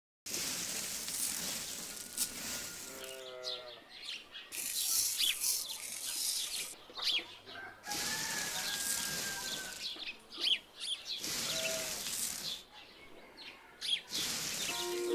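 Small polished pebbles poured and scattered from a hand, rattling and clattering against each other onto sand in about five separate pours of one to three seconds each.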